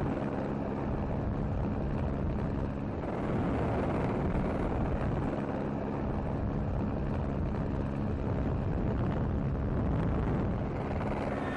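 Steady engine drone, even in pitch, with no revving or gear changes.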